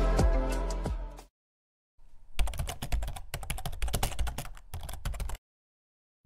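Music fades out in the first second. After a short gap comes about three seconds of rapid, irregular keyboard typing clicks, a typing sound effect, which stop abruptly.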